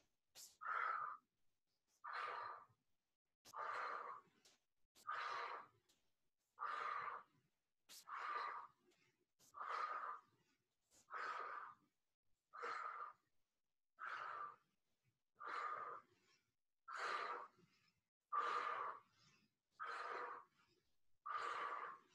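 A woman breathing out through her mouth in short, even puffs, about one every one and a half seconds, with the in-breaths through the nose unheard: the rhythmic blown exhales of a qigong chi-clearing breath.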